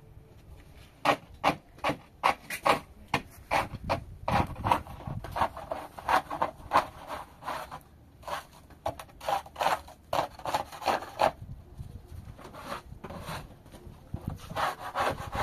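Repeated scraping strokes, about two a second, with a short pause about three-quarters of the way through.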